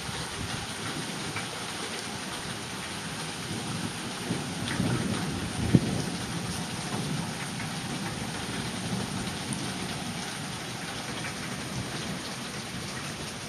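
Thunderstorm: steady rain pattering down, with a low rumble of thunder swelling about four seconds in and peaking in a sharp crack near the middle.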